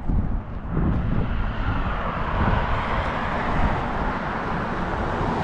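A car driving past on the road: tyre and engine noise swells about a second in and holds, over wind rumbling on the microphone.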